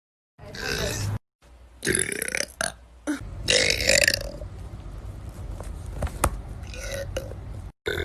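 A person burping: three long belches in quick succession, each about a second, then quieter noise. The sound cuts to dead silence briefly near the start and again near the end.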